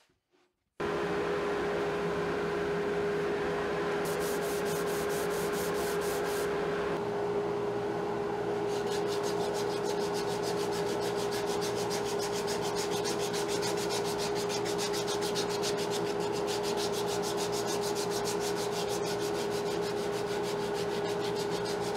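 Hand sanding with sandpaper on wood, rubbing in repeated strokes, over the steady hum of a dust extractor drawing air through the downdraft sanding box. The extractor comes on suddenly about a second in and runs steadily.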